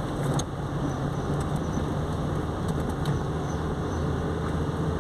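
Car running along a village street, heard from inside the cabin: a steady low engine and tyre drone. A few faint clicks come just after the start and again about three seconds in.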